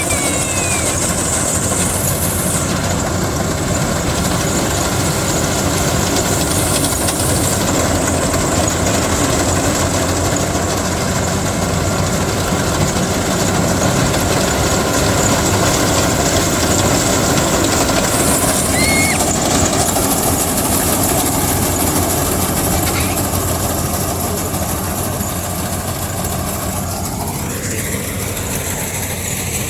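Rice combine harvester running steadily while harvesting paddy, its engine and threshing machinery making a continuous mechanical din. A rising tone comes in near the end.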